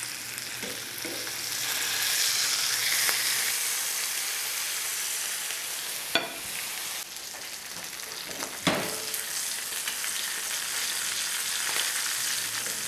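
Fish pieces sizzling in butter and oil in a nonstick frying pan as their skin crisps, with two sharp knocks about six and nine seconds in.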